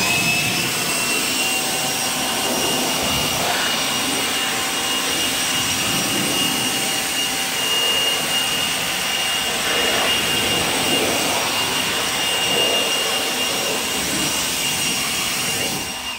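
DeWalt 60V cordless leaf blower running steadily at full speed: a high, steady whine over a loud rush of air, blasting rinse water out of an engine bay.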